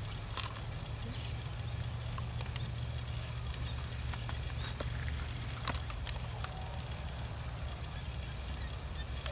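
Steady low rumble with scattered small clicks and crackles from a charcoal fire under a spit-roasting whole pig.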